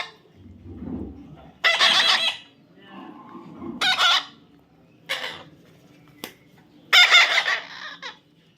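A parrot giving harsh squawks, four loud calls of about half a second each spaced a second or two apart, with a sharp click between the last two.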